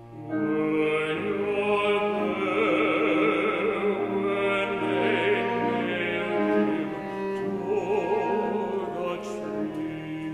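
Slow liturgical music: a solo voice holds long notes with wide vibrato over keyboard accompaniment and steady low bass notes. It comes in about a third of a second in.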